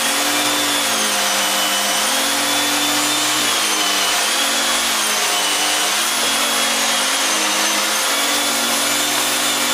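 Vacuum cleaner running steadily, its motor whine sliding up and down in pitch every second or so over a loud rush of air.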